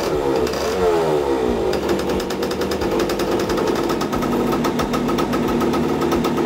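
1972 Yamaha LT2/DT100's single-cylinder two-stroke engine running, just brought back to life and smoking heavily: a brief rev that falls away within the first two seconds, then a steady, rapid popping idle.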